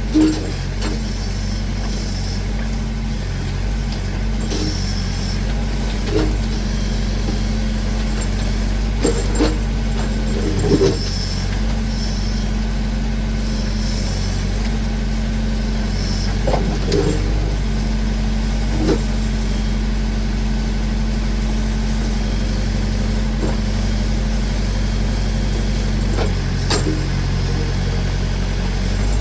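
Massey Ferguson backhoe's engine running steadily while digging, with occasional clunks and knocks from the arm and bucket.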